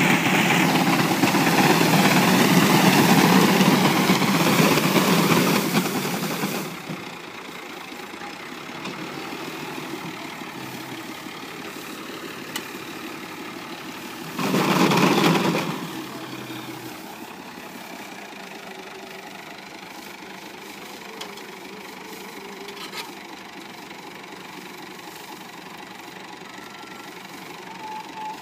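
Al Ghazi tractor's diesel engine running while its front-mounted reaper works in wheat. It is loud for the first six seconds or so, then drops to a steady idle, with a brief rev about halfway through.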